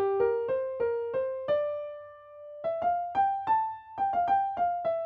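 Background music: an electric-piano melody of single notes, each struck and fading, with a short pause about halfway.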